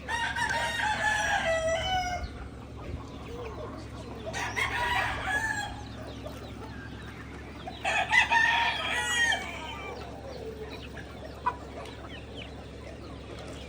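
Rooster crowing three times, each crow about one and a half to two seconds long, with chickens clucking between the crows.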